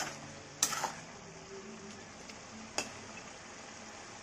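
Spatula stirring and scraping small fish curry in a pan, with a clear scrape just under a second in and a shorter one near three seconds, over a faint sizzle.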